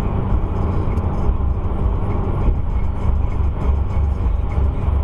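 Steady low road and engine rumble heard inside a car cabin while it drives at highway speed.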